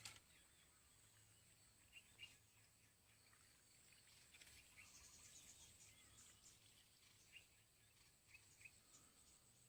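Near silence: faint outdoor ambience with scattered faint bird chirps over a steady high insect drone, and a brief click at the start.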